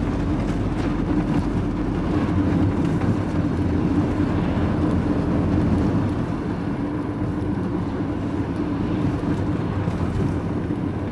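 Vehicle engine and road noise heard from inside the cab while driving: a steady low drone with a held hum, easing slightly about six seconds in.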